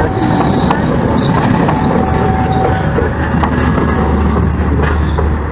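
Passenger train coaches running past at close range, a steady rolling rumble of steel wheels on the rails with occasional clacks.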